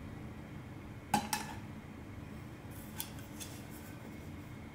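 Light metallic clinks from a Trangia aluminium kettle as it is handled: two sharp clinks close together about a second in, then a couple of fainter ones later.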